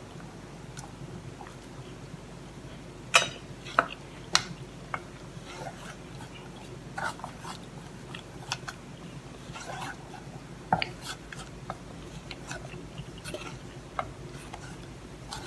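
Wooden spoon stirring a thick, wet banana-and-butter cake batter in a stainless steel saucepan, with soft squelches and scattered light knocks of spoon and bowl against the pan, a few sharper knocks about three to four seconds in.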